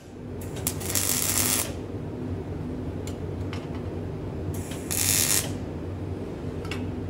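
Arc welding on a steel pipe: two short bursts of arc hiss, one about a second in and a shorter one about five seconds in, over a steady workshop hum, with a few sharp clicks in between.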